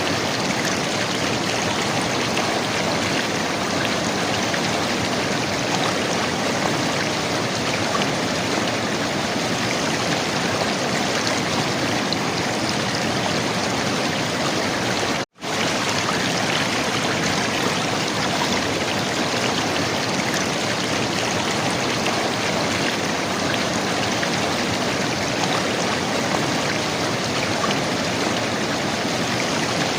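River water flowing and gurgling in a steady, even rush. The sound cuts out completely for an instant about halfway through, then resumes unchanged.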